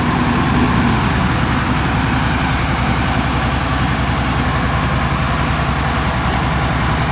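Heavy-equipment diesel engine running loudly and steadily, an even low drone that does not change.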